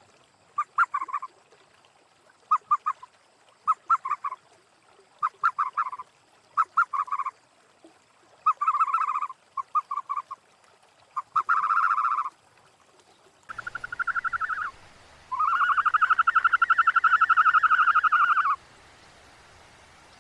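Animal calls: short pulsed calls, one about every second, then after a cut two longer buzzy calls, the last lasting about three seconds.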